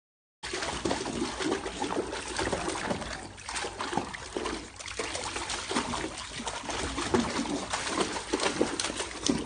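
Bulldog splashing through shallow water in an inflatable paddling pool: a run of irregular small splashes and sloshing that starts suddenly about half a second in.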